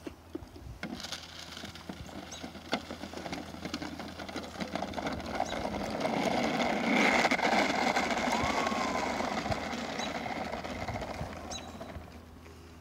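Plastic toy garbage truck pushed along an asphalt path, its wheels rolling and rattling on the gritty pavement in a dense crackle that builds to its loudest around the middle and fades near the end.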